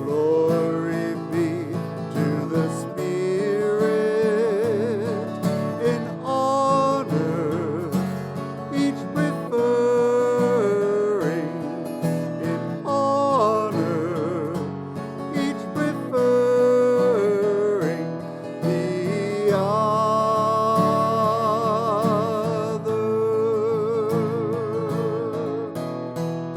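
Slow hymn sung by a voice with held, wavering notes, accompanied by acoustic guitar.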